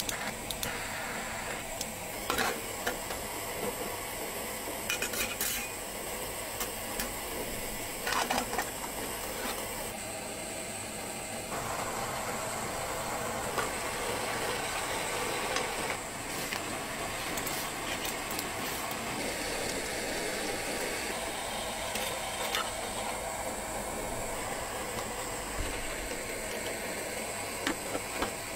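Small camp stove burning with a steady hiss while food sizzles in a metal mess tin, with occasional clinks and scrapes of metal utensils against the pan.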